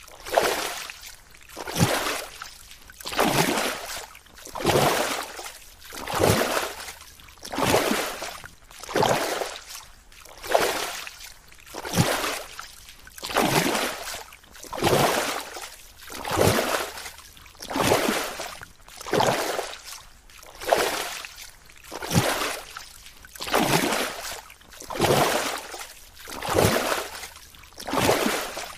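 Water sloshing in a steady rhythm: a whooshing swell about every one and a half seconds, each one rising and falling away.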